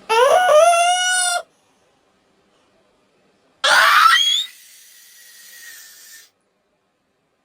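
A cartoon character's sneeze: a loud, rising, drawn-out 'aaah' wind-up lasting over a second, then after a pause of about two seconds a sudden noisy 'choo' that trails off into a softer hiss.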